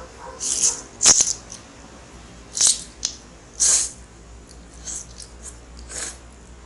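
Eating sounds from a person eating very spicy instant ramen: five short hissy slurps and sharp breaths through the mouth, with a sharp click about a second in.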